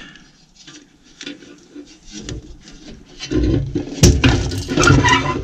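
Handling noise at a corn feeder: a few faint clicks, then from about three seconds in, loud scraping and rubbing with sharp knocks, the loudest about four seconds in.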